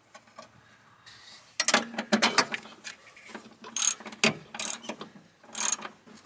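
Ratchet wrench clicking in short repeated strokes, tightening a bolt into a pre-threaded hole to fasten a bracket. The clicking starts about a second and a half in and comes in bursts about once a second.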